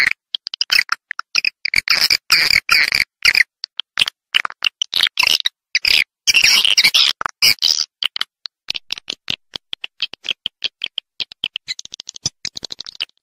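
Swiftlet calls played as a lure sound for swiftlet nest-houses: rapid trains of clicking, buzzy chirps cut by short silent gaps, turning into a denser, higher twittering near the end.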